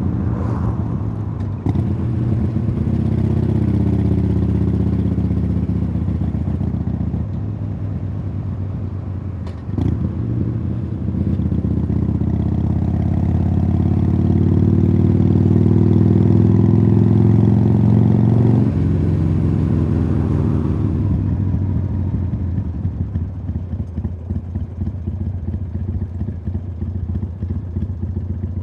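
2015 Harley-Davidson Sportster Iron 883 air-cooled V-twin through Khrome Werks Tapered 3 aftermarket exhausts, heard onboard while riding. It pulls up through the revs, breaks briefly for a gear change about ten seconds in, then pulls again to its loudest. The throttle shuts off sharply a little past halfway, and the engine drops to a low, uneven off-throttle beat.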